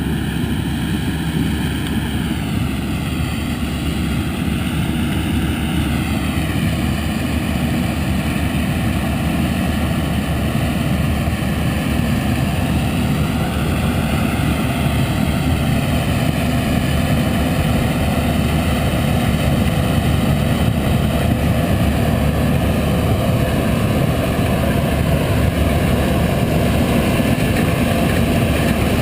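A 6130 combine harvesting corn with an 8-row Drago GT corn head, its diesel engine and threshing machinery running in a steady, loud drone, with a tractor pulling a grain cart alongside. Faint tones in the noise slowly drift up and down, and the drone grows slightly louder toward the end.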